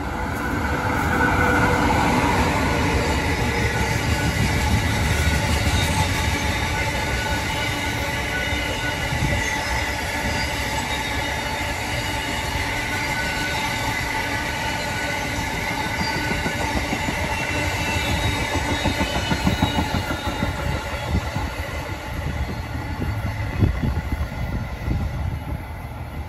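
Amtrak passenger train hauled by a Siemens ACS-64 electric locomotive passing at speed: steady heavy rumble of steel wheels on the rails with clicking over the rail joints and a set of steady whining tones, plus a higher whine in the first couple of seconds as the locomotive goes by.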